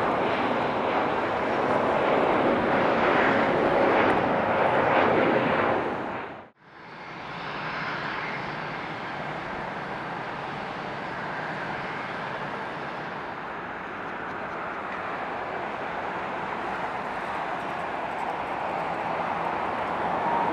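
Jet aircraft engines, loud with a whine for about six seconds, then cut off abruptly. After a moment of silence, a steadier, quieter jet engine noise takes over and holds.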